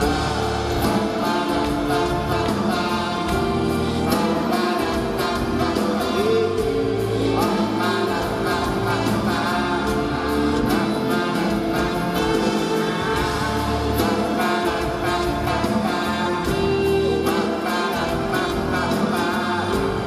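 Live performance of a song: a male lead voice sung into a microphone over a band with drums, cymbals and keyboard, heard through the concert sound system.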